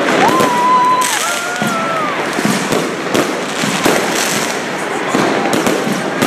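Fireworks going off: aerial shells bursting in a dense string of bangs and crackling.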